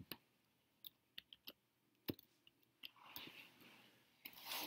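Faint, scattered keystrokes on a computer keyboard, single clicks with pauses between them, the sharpest about two seconds in. A soft hiss comes about three seconds in.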